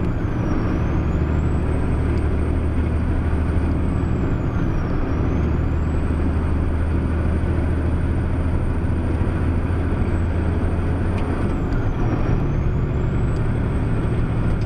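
Truck engine running steadily with road noise, heard from inside the cab while driving. A thin high whine dips in pitch three times.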